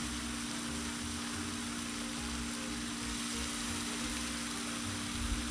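Thick-cut bacon sizzling on a hot Blackstone 22-inch flat-top griddle: a steady hiss, with a steady low hum underneath.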